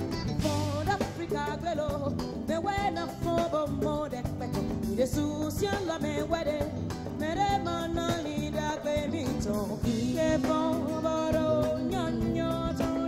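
A woman singing lead into a microphone with a live band of electric guitar and drum kit.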